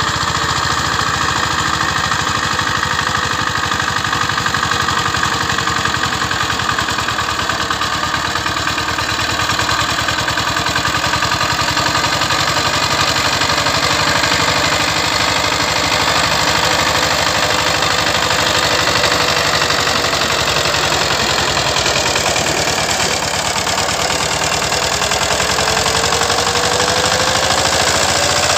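VST Shakti 130 power tiller's single-cylinder diesel engine running steadily under load with a fast, even beat while its rotary tiller churns the soil.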